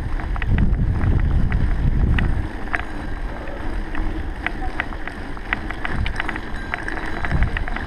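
Wind buffeting the microphone as a low rumble, heaviest in the first couple of seconds, with scattered sharp clicks throughout.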